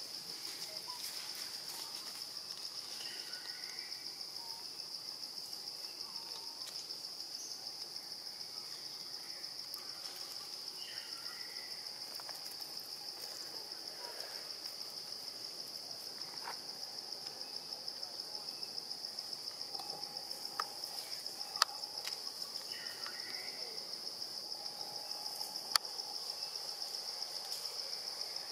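Steady, high-pitched insect chorus, buzzing on without a break, with a few faint short calls and two sharp clicks in the second half.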